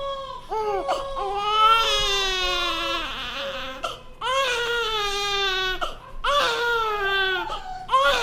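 Infant crying hard: a run of long wailing cries, each falling in pitch, broken by short catches of breath.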